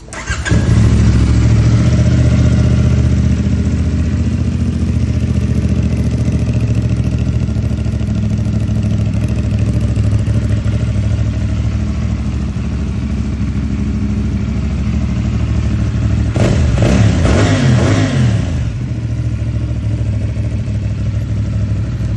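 CFMOTO 450CL-C motorcycle's parallel-twin engine, heard through its stock exhaust, starting about half a second in and idling steadily. About sixteen seconds in it is revved a few times, the pitch rising and falling, before it drops back to idle.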